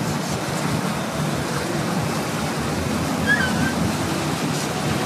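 Steady rush of water and wind from a Bayliner 2855 cruiser under way, with the low hum of its inboard engine underneath. A brief high chirp sounds a little after three seconds.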